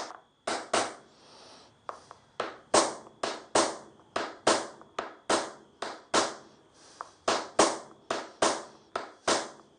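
A small hammer tapping a homemade pattern punch, a slotted screw set in the end of a stick of timber, into a wooden board to stamp a texture. It goes as sharp, even taps, about two to three a second, with a short pause about a second in.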